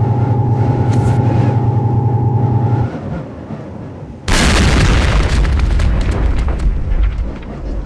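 Sound effects: a steady hum with a single tone starts suddenly and runs for about three seconds. About four seconds in, a sudden loud explosion-like boom follows, with a deep rumble and crackling that fades near the end.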